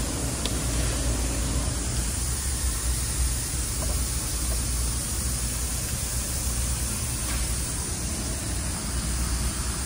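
Large shop drum fans running: a steady rushing hiss with a low hum underneath.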